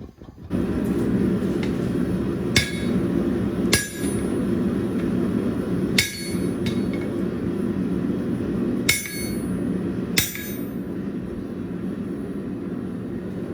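Five widely spaced hammer blows ringing on steel at the anvil, over a steady low rushing noise that starts about half a second in.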